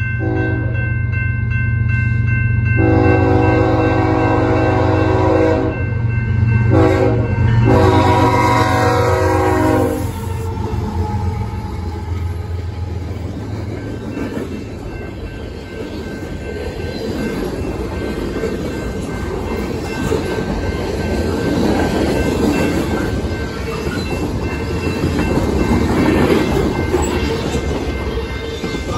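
A diesel locomotive horn sounds several blasts over the first ten seconds, the last a long one, over the steady ringing of the grade-crossing bells. After that comes the rumble and clatter of freight cars rolling past on the rails.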